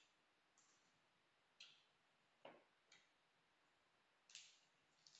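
Near silence broken by about six faint, crisp snaps and crackles of raw green leaves being torn apart and folded by hand.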